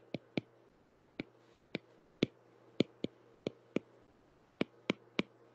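Stylus tip tapping and ticking on a tablet's glass screen during handwriting: a string of short, irregular clicks, about two a second.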